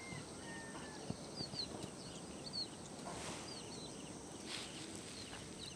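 Many faint bird chirps and short whistled calls, scattered and overlapping, over a low steady outdoor hiss.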